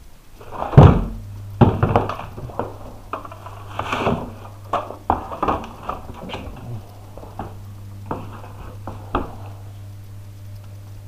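A series of knocks and thuds, the loudest about a second in, over a steady low hum that starts about a second in.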